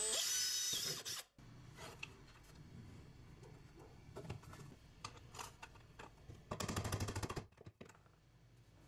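Cordless drill boring a hole in a PVC pipe battery casing for about a second, its pitch rising as it spins up, then stopping abruptly. Faint handling noises follow, and about seven seconds in there is a second short burst of rapid rattling.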